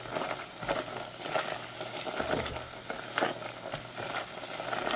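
Thick, reduced pineapple juice simmering over low heat, with irregular small pops and crackles about once or twice a second, and a spatula stirring it gently in the pot. The juice is caramelizing into a pineapple caramel sauce.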